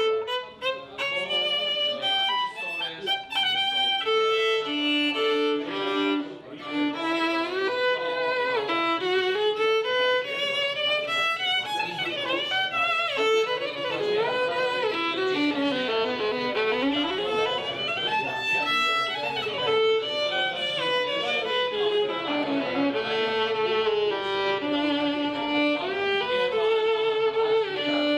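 A violin playing a flowing melody with vibrato, often sounding two notes at once.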